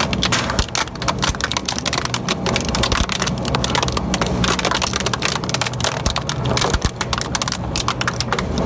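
Twin-shaft industrial shredder chewing up a rusty toothed metal gear: a dense, rapid crackle of metal cracking and crunching between the rotors over the machine's steady low drone.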